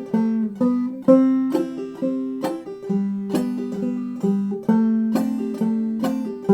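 Clawhammer banjo playing a slow phrase in the key of G, a steady, even rhythm of plucked notes with the strings ringing between strokes.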